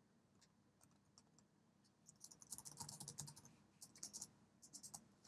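Faint typing on a computer keyboard: a few scattered keystrokes, then a quick run of keys from about two seconds in as a web address is typed.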